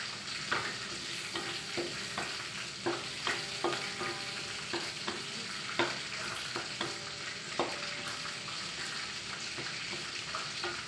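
Chilli paste frying in hot oil in a metal wok, a steady sizzle. A wooden spatula stirs it the whole time, scraping and knocking against the wok many times.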